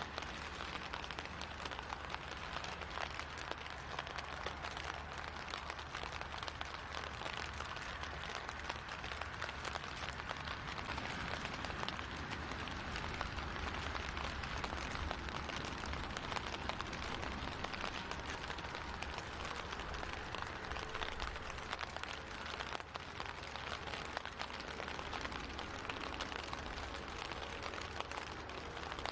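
Steady rain pattering, a continuous fine crackle that holds at an even level.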